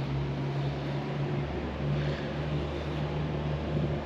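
Steady low mechanical hum over outdoor background noise, briefly dipping about one and a half seconds in.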